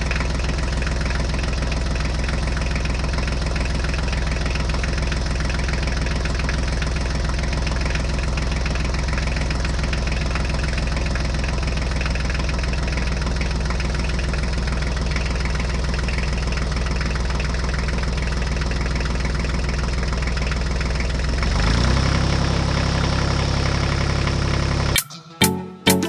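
Mini tractor's engine running steadily with a low, even drone; about three-quarters of the way through its pitch steps up slightly as it speeds up.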